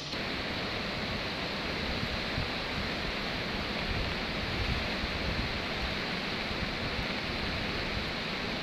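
Swollen, muddy river in flood rushing past: a steady, even noise of fast-moving water.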